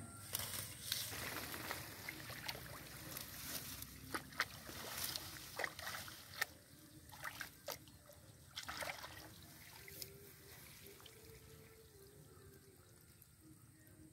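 Hands splashing and sloshing in a shallow muddy pool and rustling grass and water hyacinth leaves, a run of short splashes and crackles through the first two-thirds, then quieter with only occasional trickles.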